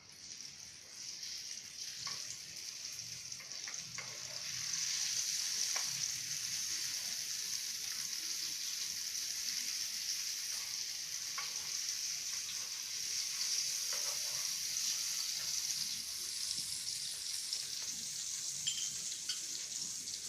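Banana slices frying in melted margarine in a nonstick pan: a steady sizzle that builds over the first few seconds and then holds, with a few light clicks now and then.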